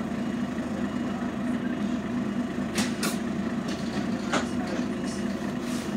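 Scania N113CRB bus's rear-mounted six-cylinder engine running with a steady low drone, heard inside the passenger cabin. A few short clicks and rattles come through around the middle.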